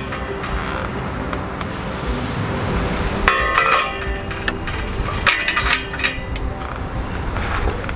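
Sheet-steel fire-pit parts clinking and knocking together as a honeycomb-cut hexagonal surround is set onto its steel base: a quick run of metal clinks about three seconds in and another a little after five seconds.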